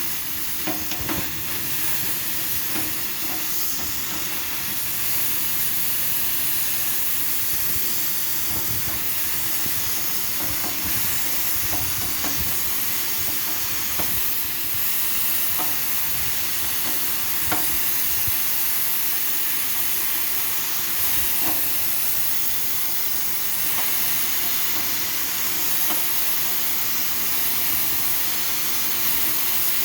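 Refrigerant gas hissing steadily out of a Daikin split air conditioner as it is vented, a few faint clicks under it. The gas is being released because the compressor has failed and is about to be replaced.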